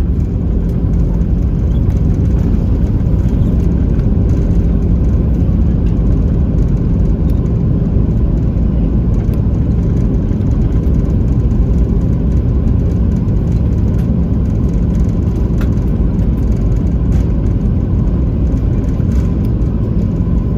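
Cabin noise of an Airbus A320 rolling down the runway after landing: a loud, steady low rumble from the engines and wheels, with a steady hum under it.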